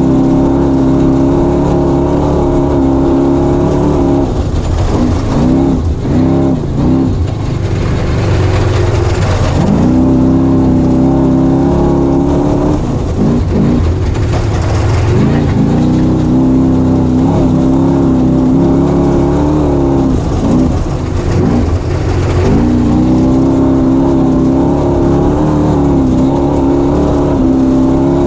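Off-road race vehicle's engine heard close up from onboard, running at high revs and dropping in pitch then climbing back several times as the throttle is eased and reapplied, over a steady low rumble.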